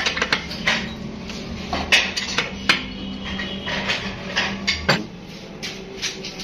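Irregular metallic clinks and knocks as a small DC motor and the cast end plate of a water pump are handled and fitted together, over a low steady hum that fades near the end.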